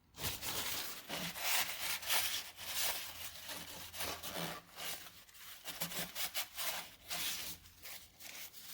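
Irregular scraping and rubbing strokes of metal on metal from work in a Mopar 440 big-block's cam bearing bore. The cam bearings are being scraped to take off material so a new camshaft will fit.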